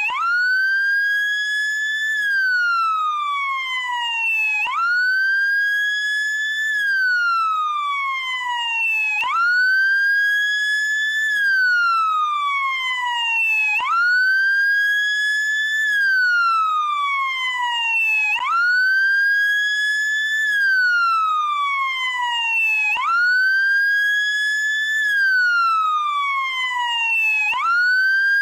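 SAMU ambulance motorcycle's siren on the wail tone. Each cycle sweeps up quickly, holds near the top for about two seconds, then glides slowly down, repeating about every four and a half seconds.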